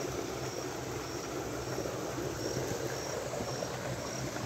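An insect chirping in short, high, evenly spaced pulses, a little under two a second, over a steady low background hum.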